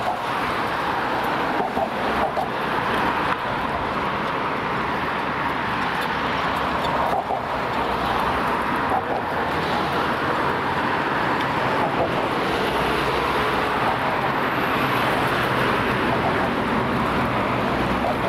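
Steady road traffic: cars driving along the bridge roadway just beside the walkway, a continuous rushing noise of tyres and engines.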